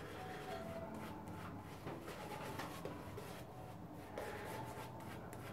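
Omega shaving brush rubbed over stubble, working Wilkinson Sword shaving soap lather into the beard: a quiet, scratchy swishing of bristles.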